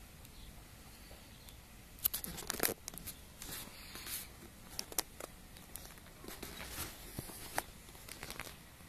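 Close rustling and scratching with many sharp clicks, starting about two seconds in: young kittens scuffling in grass and clambering onto a person's denim trouser leg.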